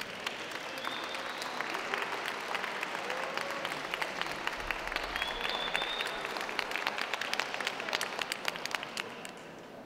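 Audience applauding: many hands clapping, swelling at the start and thinning out near the end.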